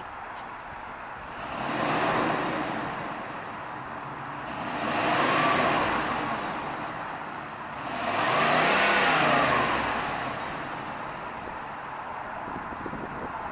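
A 1990 Cadillac Brougham's 5.0 L V8 idling, then blipped three times. Each rev rises and falls back to idle, and the third, about two-thirds of the way through, is the longest.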